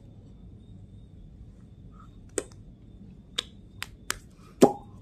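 Five sharp taps and knocks close to the microphone, irregularly spaced in the second half, the heaviest one near the end: hands bumping the recording phone or its surface while gesturing.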